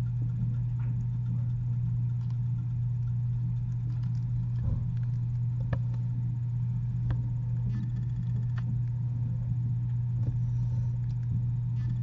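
A steady low hum, with a few faint clicks and taps over it.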